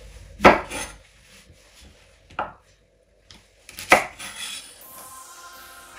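Kitchen knife cutting through whole zucchini and striking a bamboo cutting board: three sharp chops about one and a half to two seconds apart. Music comes in near the end.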